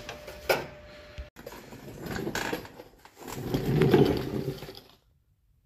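Hand tools clicking and clanking on metal, starting with a sharp click about half a second in as the battery's negative terminal is disconnected. Scattered mechanical clicking follows, then a louder stretch of rattling near the end that stops suddenly.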